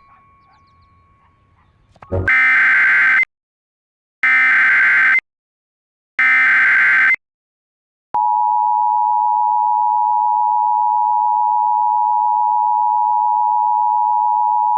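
Emergency Alert System SAME header: three one-second bursts of buzzy data tones, a second apart. About eight seconds in, the EAS attention signal starts: a steady, loud two-note tone (853 and 960 Hz) that holds without a break.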